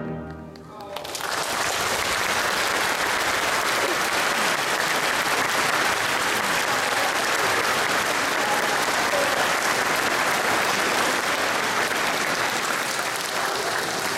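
The orchestra's last chord fades away within the first second, then the audience breaks into steady applause that fills the hall.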